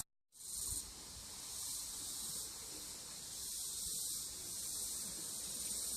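A steady, even high-pitched hiss with no distinct events.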